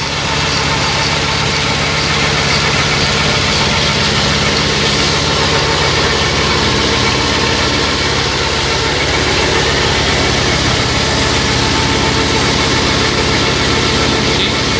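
Mobile milking parlor's vacuum washing system running steadily during the circulation wash, its pump running while wash water and air rush through the milking clusters and hoses.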